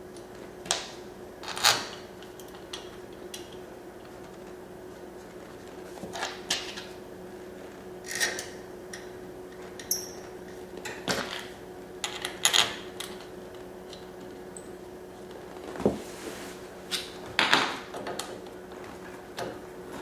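Irregular light clicks and knocks of small parts and tools being handled while a heater pump is put back together, about a dozen separate taps spread out with pauses between them, over a steady low hum.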